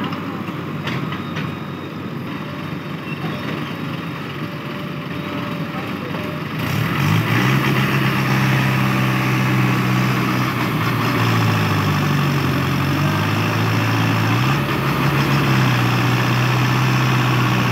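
Diesel engines running at idle, then about seven seconds in a tractor engine revs up and stays loud, its pitch dipping and rising as it hauls a trolley loaded with soil out through the mud.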